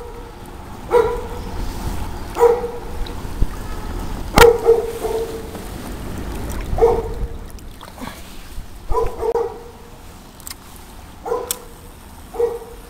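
A dog barking, about eight single barks spaced a second or two apart, over the steady rush of a shallow stream.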